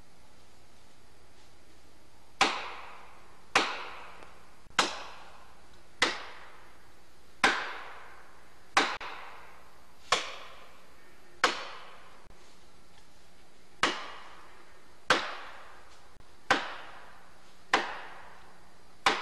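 Hammer blows driving a felling wedge into a tree's cut to tip it over. They begin about two seconds in as a dozen or so sharp strikes, roughly one every 1.2 seconds, each with a short ringing tail, with one longer pause just past the middle.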